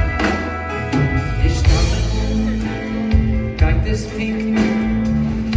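Live Jewish music: a male singer with a band, with drum hits and keyboards. A long note is held from about two seconds in until near the end.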